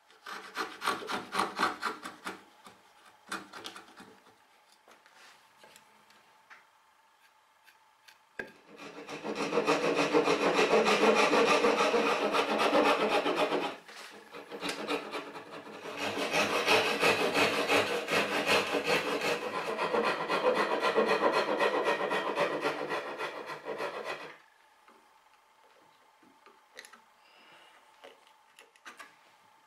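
Backsaw (tenon saw) cutting an oak tenon by hand: a short burst of rapid strokes at the start, then two long runs of steady sawing, about five and eight seconds long, with a short pause between.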